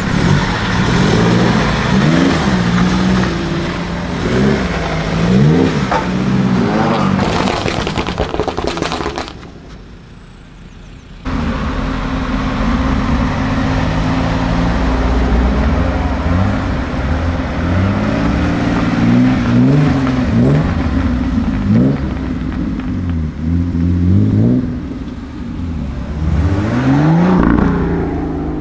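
BMW M cars' engines and exhausts revving and accelerating, the engine pitch climbing and falling several times. The sound drops away briefly about ten seconds in, then comes back as a deep steady rumble with more revving toward the end.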